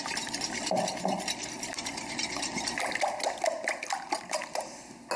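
Half-and-half cream poured into a glass bowl of eggs, then a wire whisk beating the mixture, clicking rapidly against the glass, easing off near the end.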